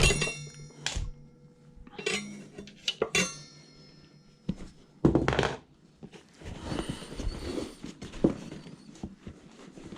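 Metal tools knocking and clinking against a bicycle wheel rim while the tire is pried off. There is a sharp ringing clank at the start, two more about two and three seconds in, and a duller knock about halfway, then soft scraping.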